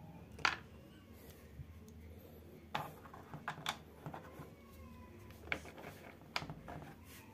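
Light, irregular clicks and taps of small screws being set by hand into a motorcycle speedometer's plastic back cover, with the sharpest click about half a second in.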